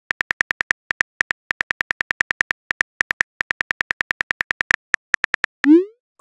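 Phone keyboard typing clicks in quick runs of about eight a second, with brief pauses, as a text message is typed. Near the end comes one short, rising whoosh: the message-sent sound.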